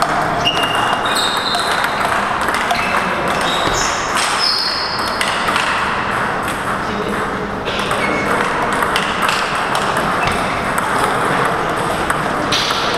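Celluloid-type table tennis ball being struck by rubber-faced paddles and bouncing on a Stiga table during rallies: many short, sharp pings and clicks, irregularly spaced, over a steady background of hall noise.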